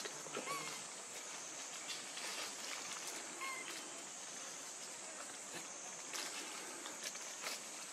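Forest ambience: a steady high insect drone, with light rustling and small clicks in dry leaf litter as young macaques shift about. Two faint short chirps sound about half a second and three and a half seconds in.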